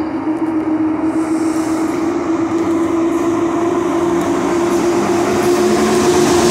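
PKP Intercity EP07 electric locomotive pulling away and running past close by. It gives a steady motor hum that rises slightly in pitch and grows louder as it gathers speed, over the rumble of the train on the rails.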